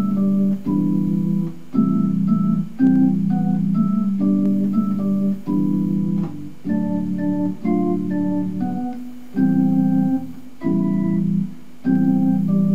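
Yamaha portable electronic keyboard being played: a melody of short higher notes over held low chords that change about once a second, with brief gaps between chords.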